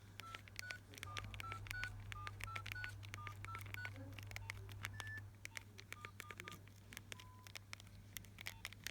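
A Nokia 1650 mobile phone sounding a string of short electronic beeps at a few slightly different pitches, with many sharp clicks among them and a steady low hum underneath.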